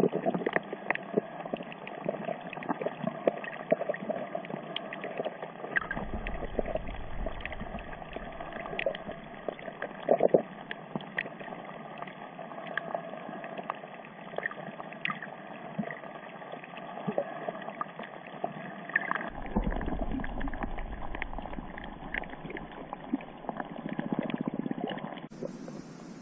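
Muffled underwater sound picked up by a camera filming beneath the surface: a steady wash of water with many sharp clicks and crackles scattered through it, and low rumbles of water movement about six seconds in and again from about twenty seconds in.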